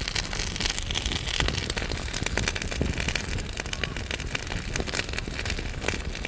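Wood fire crackling in a fireplace: irregular sharp pops and snaps over a steady hiss and low rumble.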